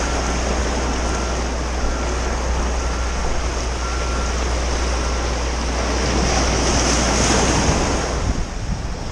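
Surf washing and breaking over shoreline rocks, a steady wash that swells a little about seven seconds in, with wind rumbling on the microphone.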